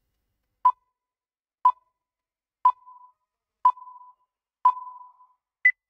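Quiz countdown timer sound effect: five short beeps at the same pitch, one a second, then a single higher beep that marks time up.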